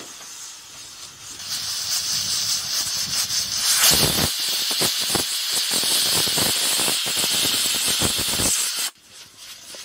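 A pressure cooker whistle: steam hissing out under the weight valve. It builds about a second and a half in, is loudest and fluttering from about four seconds, and cuts off suddenly near the end. It is the first of the two whistles that mark the khichdi cooking under pressure.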